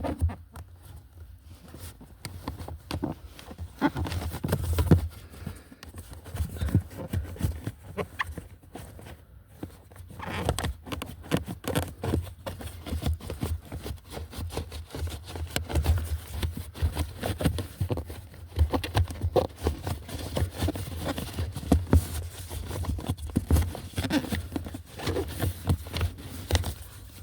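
Irregular rustling, scraping and light knocks of a pleated cabin air filter being pushed and shimmied by hand into its plastic housing, over a low steady hum.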